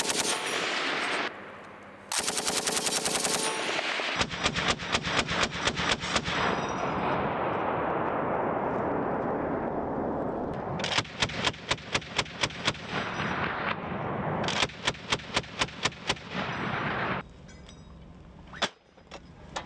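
M240 belt-fed machine guns, 7.62 mm, firing several rapid bursts of automatic fire, each one to three seconds long with short pauses between. The firing stops near the end.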